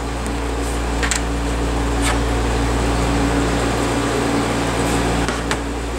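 Steady room hum with a low buzz, like a fan running, and a few faint clicks of small phone parts being handled, about one, two and five and a half seconds in.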